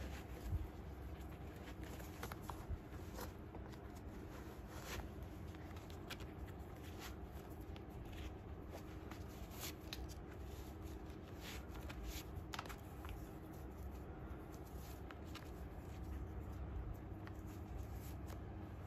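Laces being pulled through the eyelets of a Norda 001 trail running shoe and tied: scattered soft rustles and light ticks of lace and mesh upper being handled, over a faint low hum.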